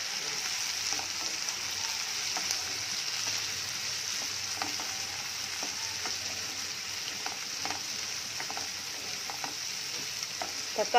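Chopped onions and tomatoes sizzling in oil in a nonstick pan: a steady hiss, with soft, scattered scrapes and taps of a spatula stirring them as they sauté.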